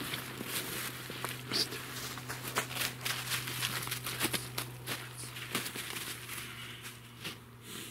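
Rustling and crinkling of a groundsheet and foam sleeping pad as a person settles onto it and a dog steps across it, a string of small irregular crackles.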